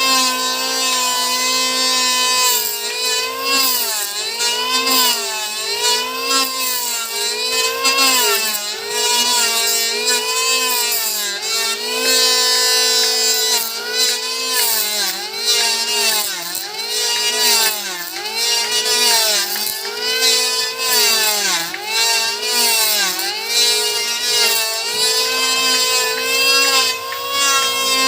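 Electric wood planer running at speed, its motor whine dipping in pitch again and again, about once a second, as the blade takes load cutting wood and then recovering.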